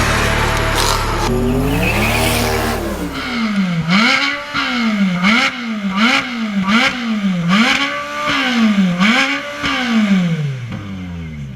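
Ferrari 458 Speciale A's naturally aspirated V8 being revved while standing. It gives about eight quick throttle blips in a row, each rising and dropping back, and the revs fall away near the end. A loud low rumble comes before the blips.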